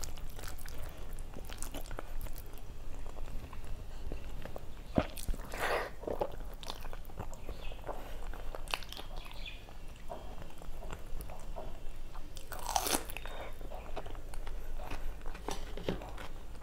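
Close-miked chewing and crunching of food by a person eating, a scatter of small wet clicks and crackles, with two louder crunchy bites about six and thirteen seconds in.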